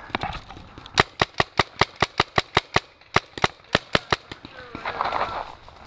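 Paintball marker firing a rapid string of about fourteen shots, roughly five a second, with a short break partway through.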